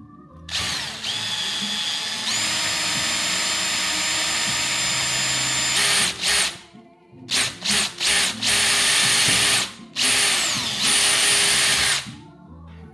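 Power drill running with a high motor whine, likely drilling holes through a mounting bracket. A long run of about five seconds rises in pitch as it speeds up, then comes a string of short stop-start bursts and two more runs of a second or two.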